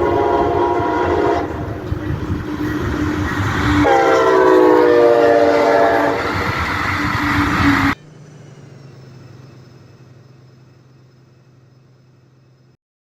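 Locomotive horn blowing as a train passes close by, over the heavy rumble of the train: a short blast, then a longer one whose pitch drops as it goes past. The sound cuts off suddenly about eight seconds in, leaving a faint fading tone.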